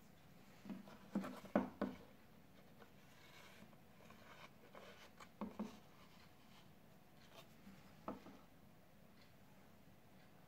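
Soft handling noise of a knife in its leather sheath being picked up, turned in the hand and laid back on a wooden table: a few light knocks and rubs, grouped in the first two seconds, around five and a half seconds in and once more about eight seconds in.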